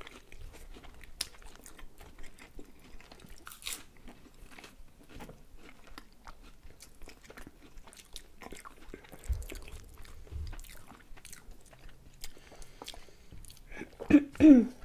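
Close-up mouth sounds of people biting and chewing crisp, flaky puff-pastry pizza: many small crunches and clicks. Near the end there is one brief, louder mouth sound.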